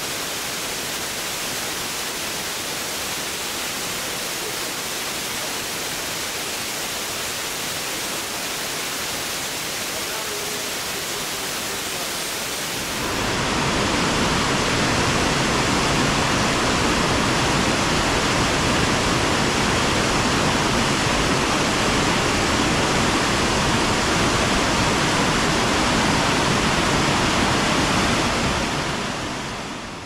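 Steady rushing of a large waterfall. About 13 s in it cuts to a louder, fuller rush with more low rumble, which fades out near the end.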